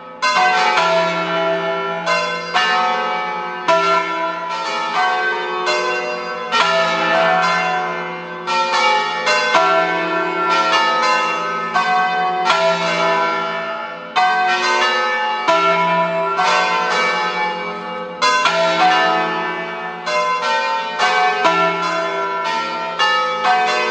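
Peal of five Ambrosian-system church bells tuned E, F♯, G♯, A and B, swung full circle so that they strike again and again in overlapping strokes, each stroke ringing on as the next comes in.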